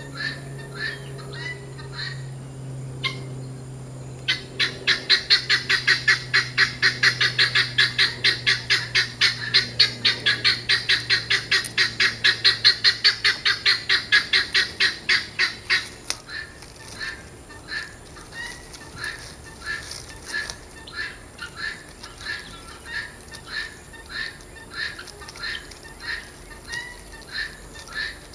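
A run of evenly spaced repeated animal calls, about three a second and loud from about four seconds in until about sixteen seconds, slower and quieter before and after. A faint low hum sits under the first half and fades out.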